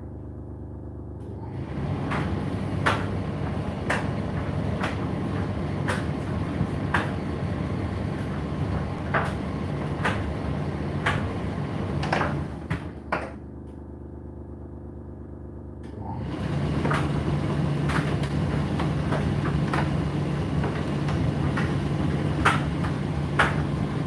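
Indesit IDC8T3 condenser tumble dryer running its drum with a steady hum and a light knock about once a second as the load tumbles. The drum stops, leaving a quieter hum, for the first second or so and again for about four seconds around the middle, then starts turning again.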